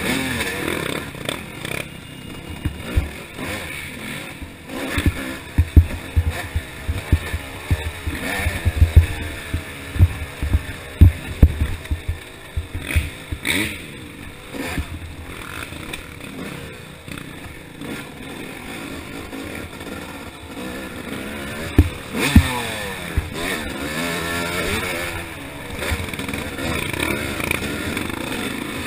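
Yamaha YZ250 two-stroke single-cylinder dirt bike engine revving up and down under hard riding, with frequent sharp thumps and knocks as the bike bangs over rocks and bumps, heard from a helmet-mounted camera.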